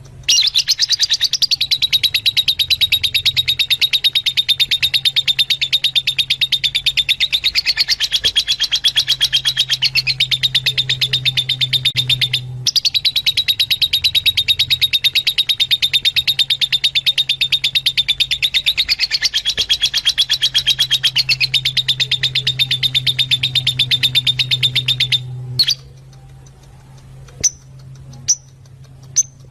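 Fischer's lovebirds chattering in a loud, fast, unbroken stream of chirps over a low hum, in a sequence that breaks off briefly and repeats itself, as from a looped recording played back. The chatter stops about 25 seconds in, leaving a few single chirps.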